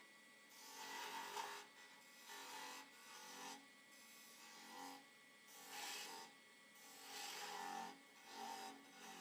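Parting tool cutting a groove into a wooden blank spinning on a lathe, in about seven short cuts of under a second each, over a faint steady hum from the lathe.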